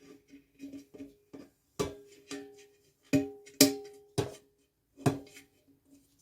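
Background music of plucked strings, a ukulele-like tune of single notes that ring and fade at a few repeated pitches.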